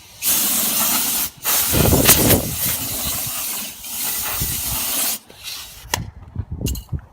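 Compressed-air blow gun (airline blower) hissing in two blasts, a short one of about a second and then a longer one of nearly four seconds, blowing dust off an alloy wheel before painting. A couple of light knocks follow near the end.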